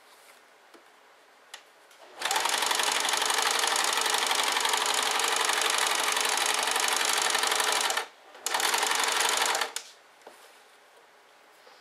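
Home sewing machine stitching through fabric at a steady fast run for about six seconds, stopping briefly, then running again for about a second more.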